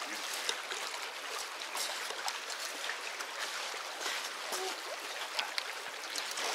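Shallow creek running over rocks: a steady babble with many small splashes and trickles.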